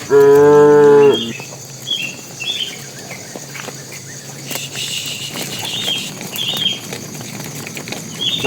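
Cattle mooing: one loud call about a second long, steady in pitch, at the start.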